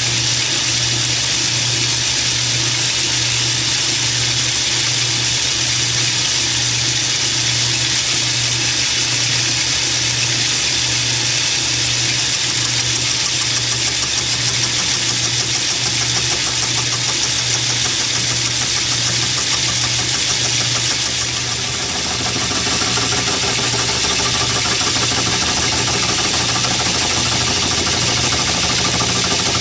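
Atlas metal lathe running with its carbide tool taking a light facing cut across the hard outer skin of a cast iron engine cylinder casting. A steady machine drone with an even pulse over a hiss; the sound dips briefly and changes a little about three-quarters of the way through.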